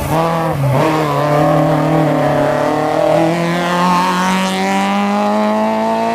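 Hatchback rally car's engine accelerating hard on a hill-climb run. Its note dips and recovers about a second in, then climbs slowly and steadily in pitch as the car pulls through one gear.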